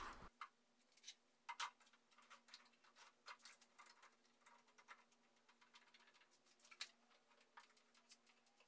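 Near silence, with faint scattered clicks and taps of metal pipe and parallel clamps being handled and tightened, over a faint steady hum.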